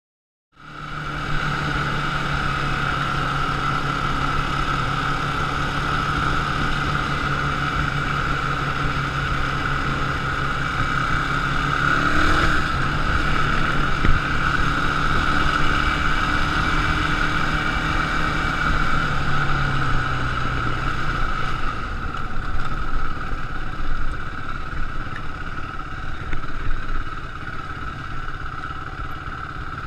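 Quad (ATV) engine running at a steady pace while riding, its pitch dropping a little about two-thirds of the way through as it slows.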